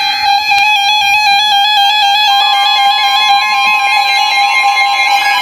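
Weather radio alert: loud, steady electronic alarm tone with a second, slightly higher tone joining about two seconds in, the signal that precedes a broadcast warning.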